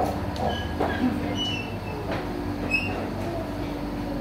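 Bingsoo snowflake-ice machine running, turning a block of frozen milk against its blade and shaving it into fine ribbons: a steady mechanical hum with a few light clicks.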